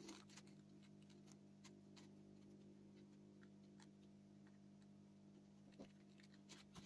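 Near silence: room tone with a faint steady hum and a few faint ticks from fingers working monofilament fishing line into a loop.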